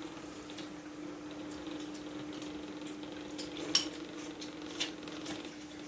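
Metal spoons scraping and clinking in metal bowls, with a few sharper clinks, the loudest nearly four seconds in, over a steady low hum.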